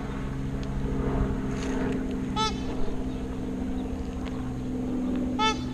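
A bird gives two short, harsh calls about three seconds apart over the steady hum of a boat motor.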